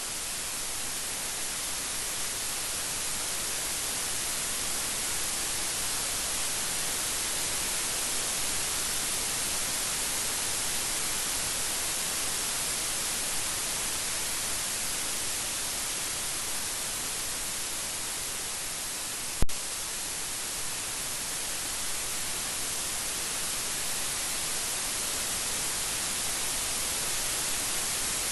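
Steady rain falling, an even hiss, with one sharp click about two-thirds of the way through.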